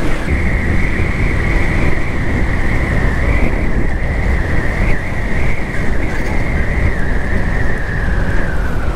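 Wind rushing and buffeting the microphone on a Yamaha FZS V3 motorcycle riding at road speed, over the steady noise of its 149 cc single-cylinder engine and tyres. A steady high whine runs with it, dipping slightly near the end.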